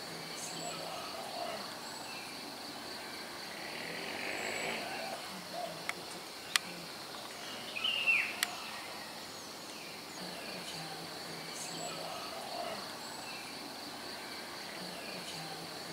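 Steady high-pitched drone of insects with birds calling now and then, including one falling call about eight seconds in. Two sharp clicks come in the middle.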